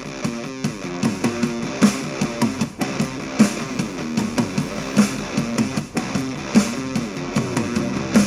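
Rock music with electric guitar and drums, played back through a small Bluetooth speaker during a before-and-after sound test.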